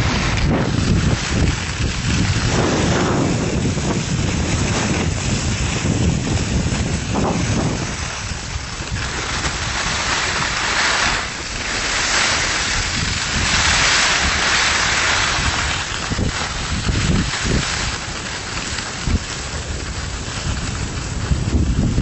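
Wind buffeting the microphone of a handheld camera during a ski descent, a loud continuous rumble and hiss. The hiss grows brighter for several seconds partway through.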